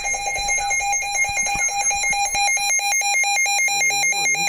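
Weather alert radio sounding its alarm for a tornado warning: a loud electronic tone beeping rapidly and evenly.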